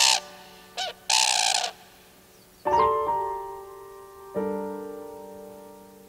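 Common cranes calling: a harsh call right at the start, a brief higher call just under a second in, and a longer harsh call just after a second. Soft piano chords then come in about three seconds in and again about four and a half seconds in, ringing out and fading over a steady low synth drone.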